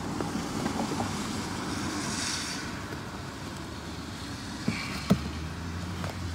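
Hard plastic trim panel of a Ford F-150 door sill being pushed and worked back under the rubber door-opening seal. There are a few light taps and one sharper click about five seconds in, over steady low background noise.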